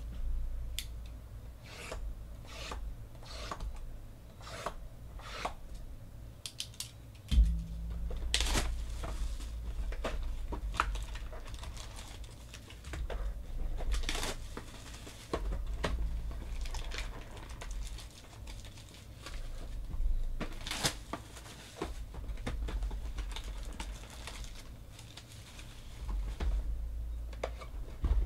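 Plastic shrink wrap being torn and crinkled off trading card boxes while packs are pulled out and handled, with scattered clicks and taps of cardboard, over a low background hum.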